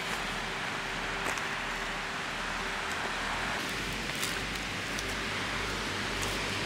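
Steady rushing noise of wind and lake waves breaking on a gravel shore, with a few light cracks and knocks as a piece of dry, weathered dead wood is picked up and handled.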